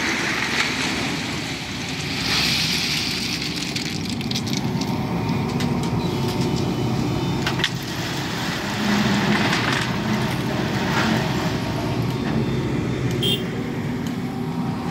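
Tipper truck's diesel engine running steadily, with a few short sharp clicks.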